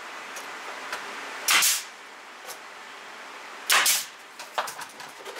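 Pneumatic nail gun fired twice, about two seconds apart, each shot a short burst with a hiss of air, followed by a few lighter knocks as a cabinet face frame is fastened.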